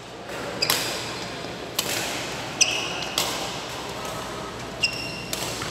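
Badminton rackets hitting a shuttlecock in a rally: about six sharp hits, a second or less apart, echoing in a large hall. Two brief high squeaks of shoes on the court floor come with the hits, a little over halfway through and near the end.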